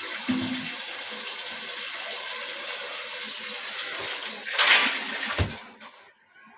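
Water running steadily from a tap into a washing machine tub, with a louder gush about four and a half seconds in, then a low thump, after which the flow stops.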